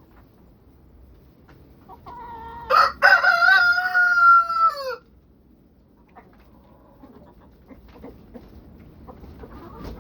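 A rooster crowing once: a loud call of about three seconds starting about two seconds in, held on one pitch and dropping at the end. Faint scattered ticks from the flock follow.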